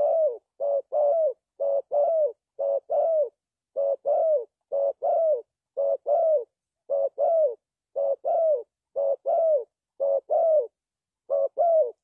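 Spotted dove cooing: a repeated two-part phrase, a short coo followed by a longer one that falls away at the end, about once a second, with a slightly longer gap near the end.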